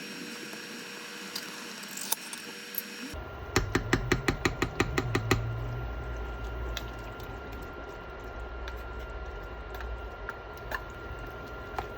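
Kitchen handling sounds: a quick run of about a dozen light knocks a little over three seconds in, then scattered small clicks and taps over a steady background hum.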